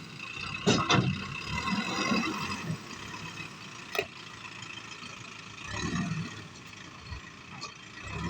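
Diesel engine of a JCB backhoe loader running steadily, with a loud clatter just under a second in and a sharp click at about four seconds.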